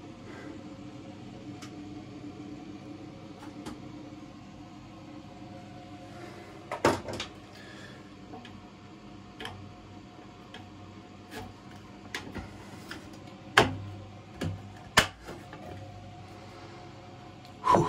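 Scattered sharp knocks and clicks of things being handled, the loudest two close together near the end, over a low steady hum.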